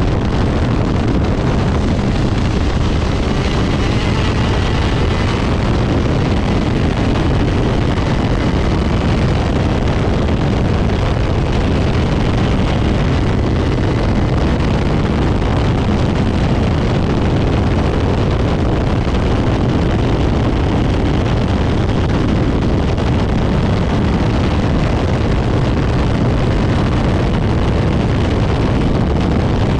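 A 125cc two-stroke shifter kart engine running flat out at steady high revs, heard onboard at speed, with wind rushing over the microphone.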